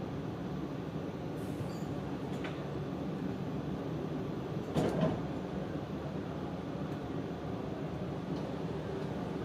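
Steady hum inside a stationary E4 series Max Shinkansen double-deck car, from its ventilation and onboard equipment. A short thump about five seconds in.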